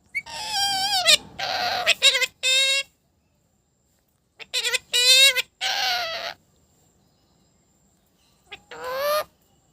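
Talking parrot vocalising in three bouts of short pitched calls, with silent pauses between them.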